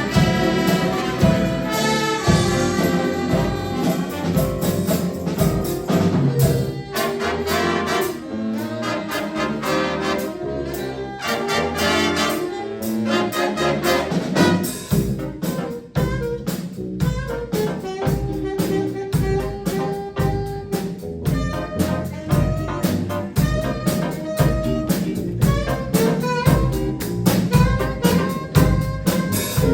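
A jazz band with brass and saxophones playing over a drum kit. About halfway through the horns thin out and a steady beat from the rhythm section comes forward.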